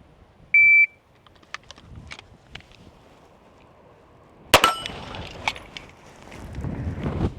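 A shot timer gives its single high start beep. About four seconds later a 9mm Staccato P pistol fires one shot, followed by small metallic clicks of handling as the magazine is changed.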